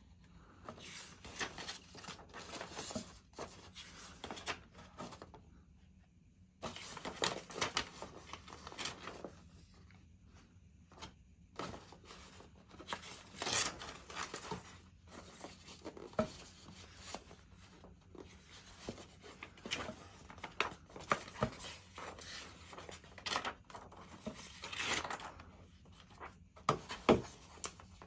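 Pages of a paper instruction booklet being turned and leafed through by hand: repeated rustling swishes of paper, with a few sharper clicks.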